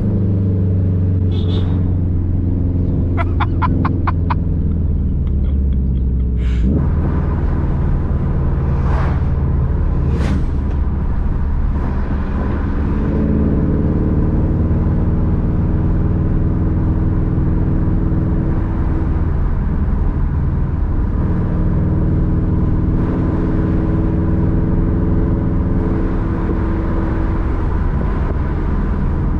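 Subaru WRX STI's turbocharged flat-four running on the road with its uneven boxer rumble, the engine note rising and falling with throttle. A quick run of clicks comes about three seconds in, and a sharp crack near seven seconds.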